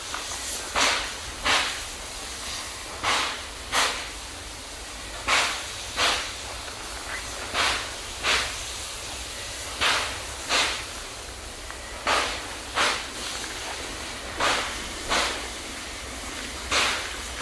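Standing steam locomotive hissing steadily, with sharp puffs of steam in pairs, a pair about every two seconds.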